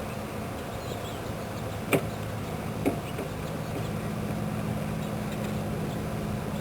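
Two sharp clicks about a second apart, from a hand grease gun being pumped to push grease up a tube into a landing-gear jackscrew, over a steady low mechanical hum.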